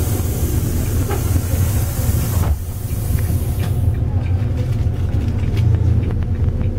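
Bus engine running with a steady low rumble, under a strong hiss of compressed air venting from the bus's pneumatic system that cuts off about two and a half seconds in, followed by a softer hiss that fades out about four seconds in.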